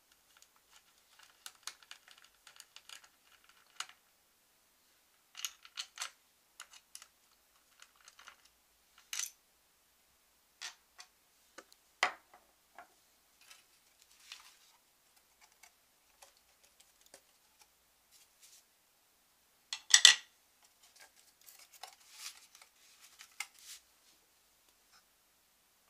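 Small clicks, taps and scrapes of a screwdriver backing out the screws of the stock AMD CPU cooler's plastic retention bracket, then of the screwdriver, bracket and screws being set down on a wooden desk. Two louder knocks stand out, one near the middle and one about three quarters of the way through.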